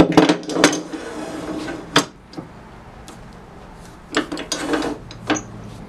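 Sharp metal knocks and clunks of lathe parts being handled and set in place as the tailstock's live center is brought up to the pin mandrel: a quick cluster at the start, one about two seconds in, and a few more near the end.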